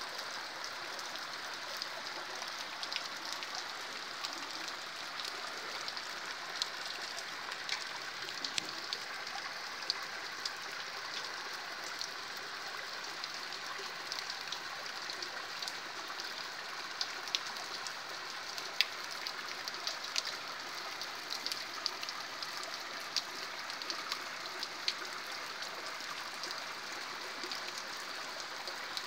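Steady rain falling, with many scattered sharp ticks of drops striking nearby, over the running of a small rain-fed stream.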